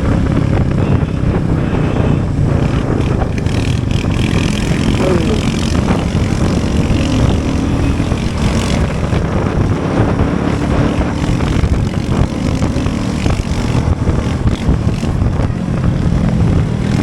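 A motor vehicle engine runs steadily at cruising speed, under loud wind and road noise.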